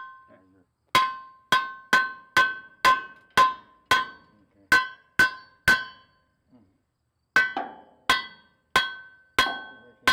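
Hand hammer striking the steel at the rear bumper and frame of a 1988 International truck, each blow ringing with a clear metallic tone. About ten blows come in a steady run of roughly two a second, then a short pause, then five more.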